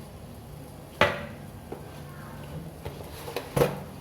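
A spoon knocking against a vessel while ingredient powders are spooned in: a sharp clink about a second in and another near the end, with a few lighter clicks between.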